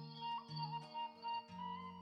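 Instrumental background music: held melody notes over a low bass line that changes note about every half second.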